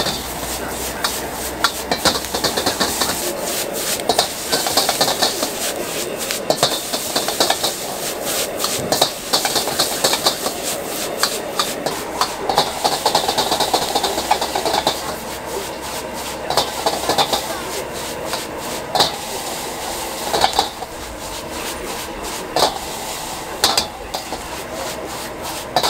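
Metal ladle repeatedly scraping and clanking against a wok as noodles are stir-fried, over a steady sizzle and the hiss of the gas burner.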